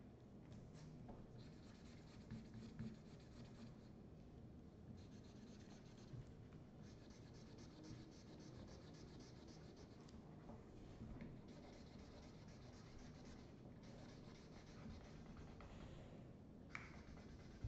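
Faint scratching of felt-tip markers being scribbled on paper, in rapid back-and-forth strokes that come in stretches of a few seconds with short pauses between.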